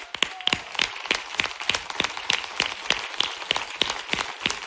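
Audience applauding, with one nearby pair of hands clapping loudly and evenly, about three claps a second, over the crowd's applause.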